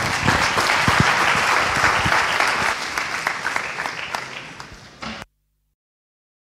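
Audience applauding, many hands clapping, dying away over a few seconds until the sound cuts off abruptly about five seconds in.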